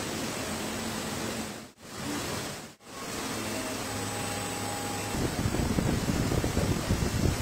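Steady fan-like hum of workshop air noise, dropping out sharply twice in the first three seconds. About five seconds in, a louder, uneven rough noise joins it.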